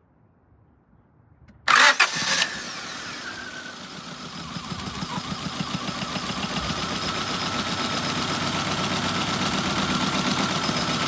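A 2004 Honda Civic's four-cylinder engine starting: it catches about two seconds in with a loud burst, then settles into a steady idle with an even pulsing beat. The idle carries a misfire that the owner traces to a bad fuel injector on cylinder 4.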